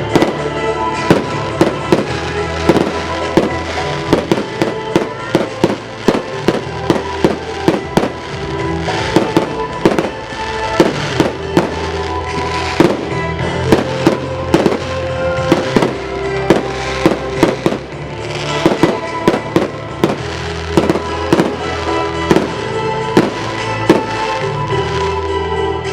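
Fireworks bursting in quick succession: a dense run of sharp bangs and cracks over loud show music.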